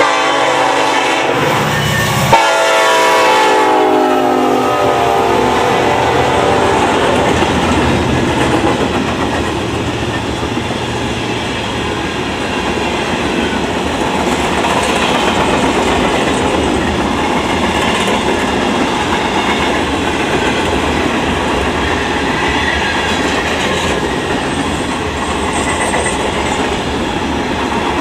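Norfolk Southern diesel freight locomotive sounding its multi-note air horn as it passes, the chord sliding down in pitch and fading within the first four seconds. Then the freight cars roll by with steady wheel-on-rail clatter.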